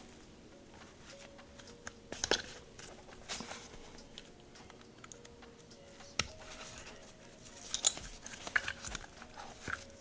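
Scattered small clicks and taps of a SAR9 compact pistol's frame parts being handled and pressed as the plastic takedown lever is fitted. The sharpest clicks come about two seconds in, about six seconds in, and in a cluster near the end.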